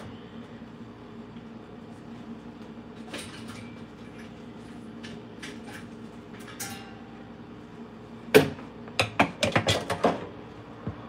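Kitchen handling sounds: a few light clicks, then a quick run of sharp knocks and clunks of things being moved and set down, loudest about eight seconds in. A steady low hum sits underneath.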